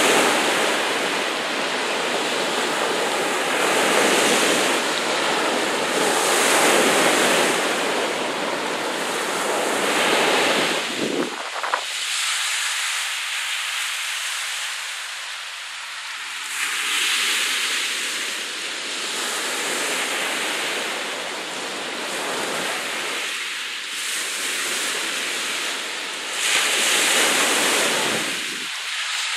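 Sea surf: choppy waves washing and breaking, a rushing noise that swells and ebbs every few seconds. About eleven seconds in the deep rumble drops out abruptly, and the surges carry on thinner.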